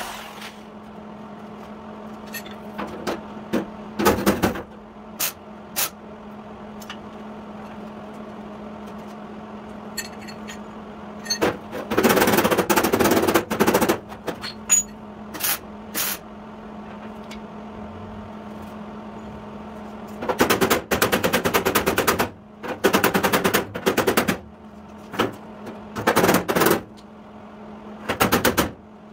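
Handheld pneumatic hammer tool striking the sheet-steel fender of a 1953 Chevy truck with rapid-fire blows. It runs in short bursts, some brief and some lasting one to two seconds, with pauses between them. A steady low hum runs underneath.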